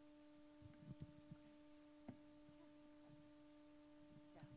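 Near silence: a faint, steady electrical hum made of several even tones, with a few soft knocks about a second in and a short click about two seconds in.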